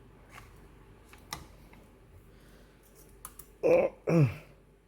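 A few faint, sharp clicks of a screwdriver and small metal parts being worked on a graphics card. Near the end come two short vocal grunts, falling in pitch, as the screwdriver fails to turn a screw.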